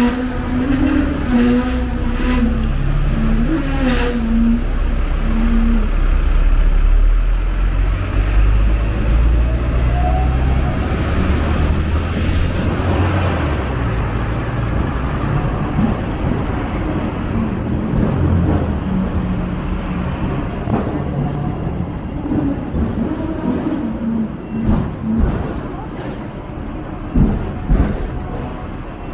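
Hong Kong double-decker tram running along the street, heard from on board: a steady low rumble of the motors and wheels on the rails, with a brief rising whine about ten seconds in. Snatches of voices and street traffic come and go near the start and end.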